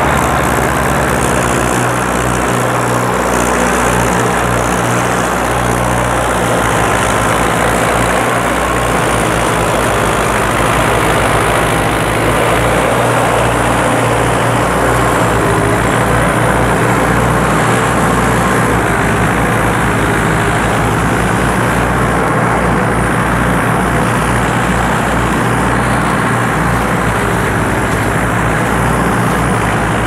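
Two Mahindra Arjun 555 tractors' diesel engines running steadily together under heavy load, pulling one mouldboard plough deep through hard ground.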